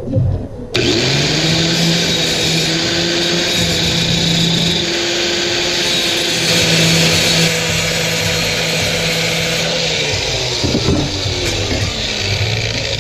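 Electric grinder cutting away excess metal from a fabricated bracket: the motor starts about a second in and runs with a steady high whine and hiss, its pitch dipping briefly under load near the end.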